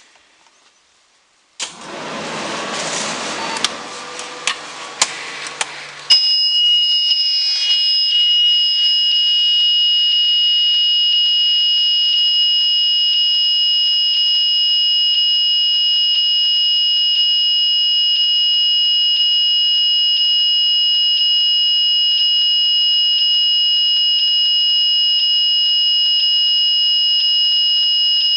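Rushing noise with several sharp clicks, then from about six seconds in a loud, steady, high-pitched warning buzzer from the school bus's dashboard, sounding with the ignition on while the engine waits for the wait-to-start light to go out before cranking.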